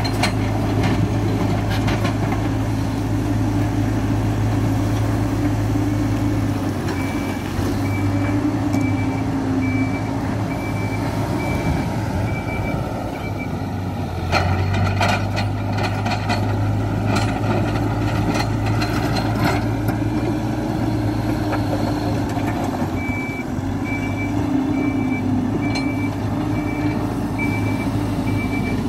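Hidromek 102B backhoe loader's diesel engine running steadily as it works, with its reversing alarm beeping at an even pace in two stretches, about a quarter of the way in and again near the end. A spell of knocks and clatter from the machine's work comes around the middle.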